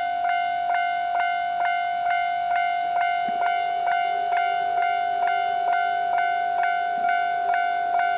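Japanese level-crossing warning bell ringing steadily at about two strikes a second, each strike a bright ringing tone. A fainter steady low tone joins about three seconds in.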